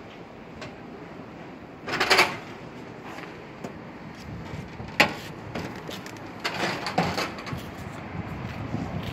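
Footsteps and handling noise from someone walking with a handheld camera, over a steady outdoor hiss. A brief loud rustle comes about two seconds in, a sharp click about five seconds in, and a rougher scuffing patch near seven seconds.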